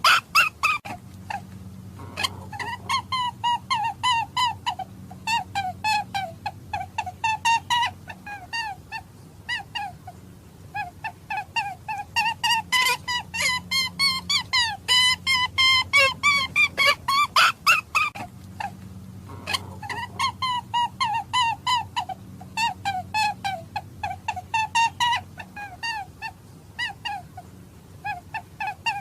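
A hare's short, pitched calls repeated about two to three times a second in long bouts, with brief pauses between bouts.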